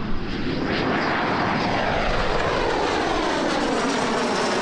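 Jet engine of the Bayraktar Kızılelma unmanned fighter jet at takeoff power as it climbs out and passes overhead. It is a steady, loud rush with a whine that sweeps down in pitch as the jet goes by.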